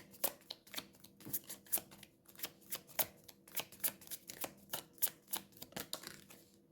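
A tarot deck being shuffled by hand: a quick, irregular run of sharp card clicks and slaps, several a second, that dies away just before the end.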